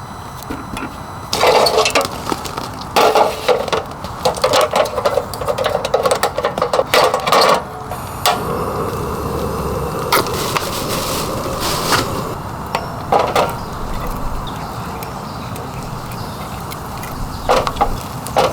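Rapid clattering and knocking of camping gear being handled, in dense clusters through the first half and again briefly near the end, over a steady hiss of rain.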